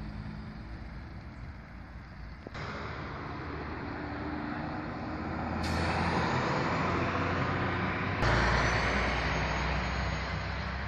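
Highway traffic noise: a heavy vehicle's engine and tyre rumble, growing louder in abrupt steps through the second half.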